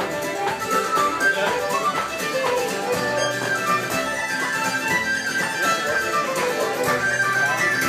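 Irish traditional dance tune played live on fiddle and tin whistle: fast running notes over a steady low beat about twice a second.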